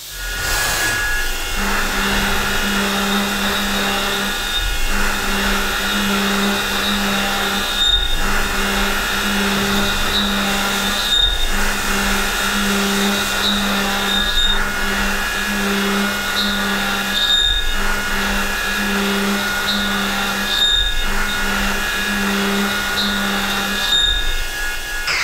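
Seco High Feed 2 indexable milling cutter running at about 4000 rpm and pocketing alloy steel at high feed, a steady machining noise. A low hum under it breaks off briefly about once a second as the cut changes through the pocket.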